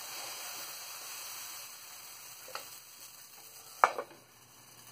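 Dosa batter sizzling softly on a hot oiled pan, the hiss fading over the first couple of seconds. Near the end a stainless steel lid comes down on the pan with a single sharp clink.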